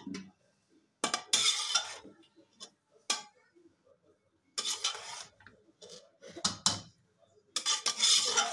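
Metal slotted spoon scraping and clinking against a metal pressure-cooker pot while boiled spaghetti is tossed and mixed with chicken masala, in about five bursts with short pauses between.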